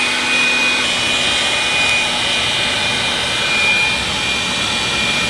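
Motorised air blower pushing air through a PVC pipe into a fire pit to make the fire burn harder: a steady rush of air with a thin, steady high whine.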